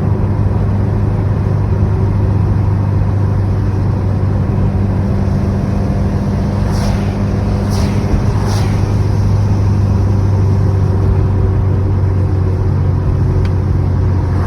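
A 2016 Subaru WRX's turbocharged 2.0-litre flat-four engine, heard from the driver's seat, holding steady revs at a light-throttle cruise, with a constant low drone over tyre and road noise. A few brief squeaks come through about halfway in.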